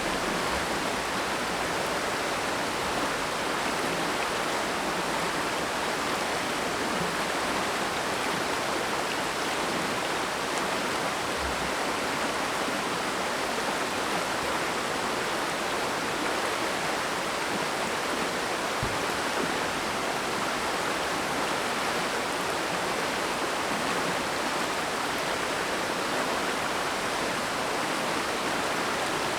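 Mountain stream rushing, a steady even sound of flowing water.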